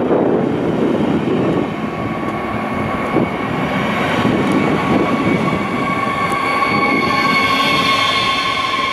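Double-deck regional train rolling past along the platform, its wheels and bogies rumbling steadily. About halfway through, a steady high squeal joins in and holds.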